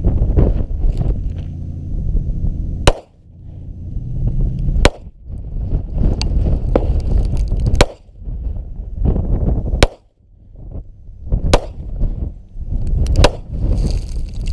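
A Smith & Wesson .45 Shield M2.0 pistol fired in a slow string, sharp cracks about every one to two seconds, with .45 ACP full-metal-jacket bullets striking the gravel slope. A low rumble continues between the shots.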